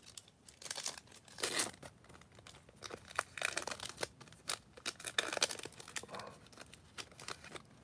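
Foil wrapper of a Topps Chrome trading card pack being torn and crinkled in the hands, a run of short rips and crackles.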